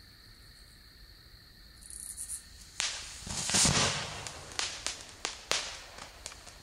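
Homemade lard-style firework packed with colored stars going off about three seconds in: a sudden whoosh and burst, surprisingly quiet for its size. A string of sharp cracks and pops follows over the next few seconds. Crickets chirp steadily underneath.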